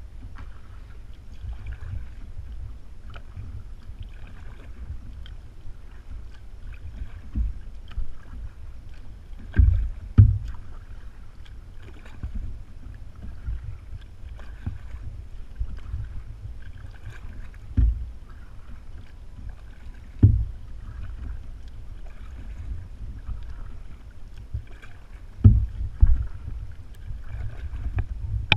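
Kayak paddling: the paddle blades dip and swish through the water in a regular rhythm about every second and a half, over a steady low rumble of wind on the microphone. A few heavier low thumps stand out around the middle and near the end.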